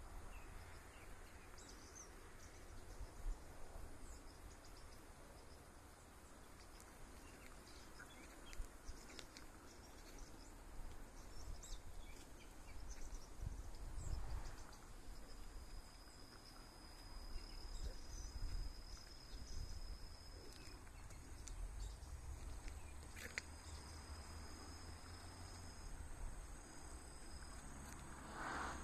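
Quiet outdoor ambience of autumn insects: crickets trilling in steady high tones, with a second high trill joining about halfway through. A few short bird chirps are scattered over a low rumble underneath.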